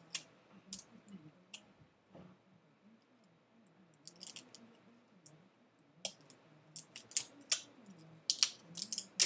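Hands releasing a MacBook LCD's LVDS and camera cables: scattered sharp clicks and crackles of cable connectors and tape being worked loose, coming in small clusters about four seconds in, around six to seven seconds, and near the end.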